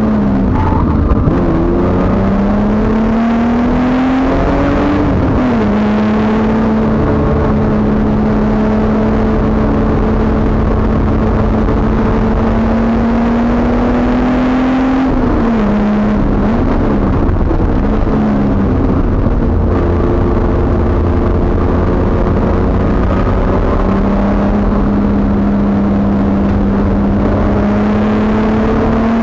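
Race car engine heard from inside the cabin, pulling under load with its pitch climbing, dropping sharply at a gear change about five seconds in. Midway it dips and jumps a few times, like braking with downshifts, then climbs steadily again near the end.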